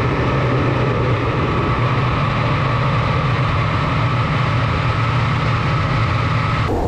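A heavy engine running steadily: a low hum with a steady whine above it, cutting off suddenly near the end.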